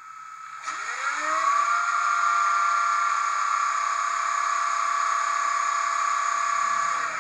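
Digital sound decoder in a Roco ÖBB 1670 model locomotive, played through its small speaker, giving the electric locomotive's start-up machinery hum. It starts under a second in, rises in pitch and settles to a steady hum with a hiss over it.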